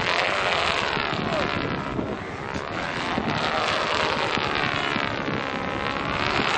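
Stunt kite buzzing as it swoops, its pitch sinking and climbing again twice, over wind rushing on the microphone.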